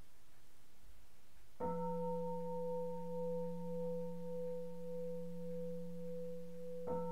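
Buddhist temple bowl bell (kin) struck twice, about five seconds apart. Each stroke rings on with a deep hum under higher overtones, wavering slowly in loudness. The strokes open the sutra chanting.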